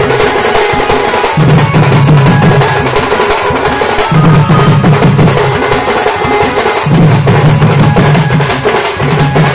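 Sing bajna folk drum band: several barrel drums (dhol) beaten hard with curved sticks in a fast, driving rhythm, over a deep tone that comes and goes every second or two.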